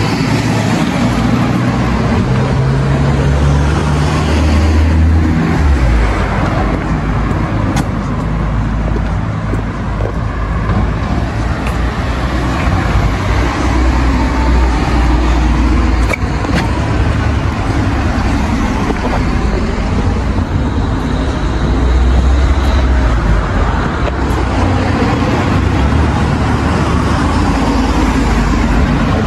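Steady outdoor street noise with a heavy low rumble that swells and fades in places.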